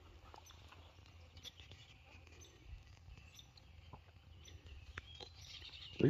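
Near silence: faint outdoor background with a low rumble, a few small clicks and faint bird chirps.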